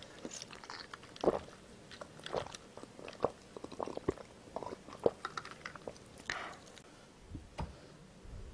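Close-up drinking of iced cola from a glass: a run of sips and swallows with small irregular wet clicks from the mouth.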